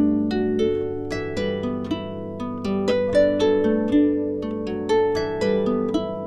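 Background music of plucked-string notes: a flowing melody of several quick plucked notes a second, each ringing briefly and dying away.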